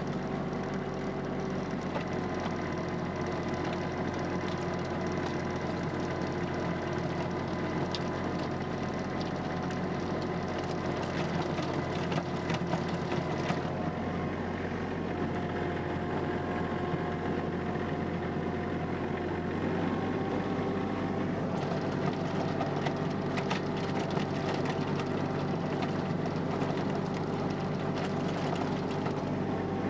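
Kubota compact tractor's diesel engine running steadily under load, driving a rear rotary tiller through soil, heard close up from the tractor. The pitch shifts slightly a few times along the way.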